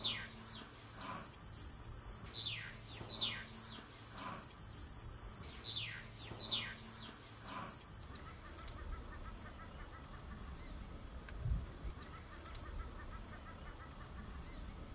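Bush ambience: a steady high insect drone, with a bird's descending whistles repeating in short series. About halfway through the sound cuts to a softer drone with faint rapid chirping and two brief low puffs near the end.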